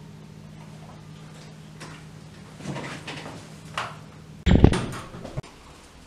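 A low steady hum while the doorbell button is held, then a loud door bang about four and a half seconds in, lasting under a second and ending in a sharp click.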